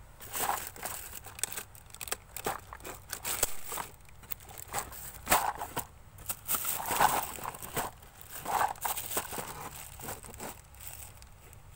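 Small plastic containers and items being handled and set down: irregular clicks, knocks and crinkling throughout.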